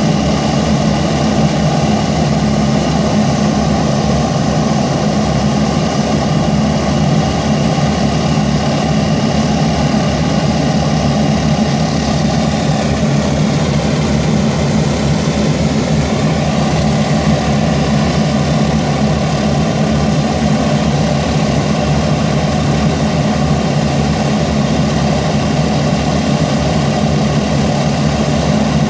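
Avro Shackleton MR3's Rolls-Royce Griffon piston engines running on the ground, turning contra-rotating propellers: a loud, steady drone whose pitch sags slightly and recovers about halfway through.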